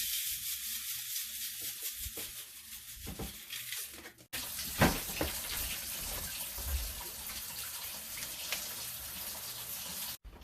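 Kitchen tap running into a sink, a steady hiss of water. It cuts out for an instant a little past four seconds, and there is a single short knock soon after.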